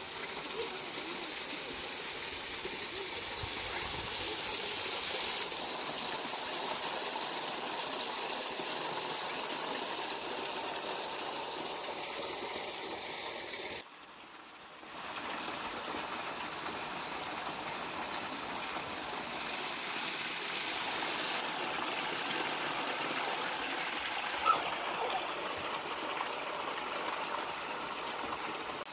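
Spring water running steadily in a shallow stream, with a constant rushing trickle. The sound drops away briefly about halfway through, and there is one sharp click near the end.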